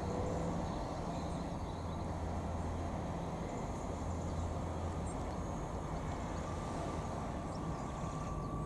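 Diesel train engine running steadily at a low hum, with a faint high whine joining about five seconds in.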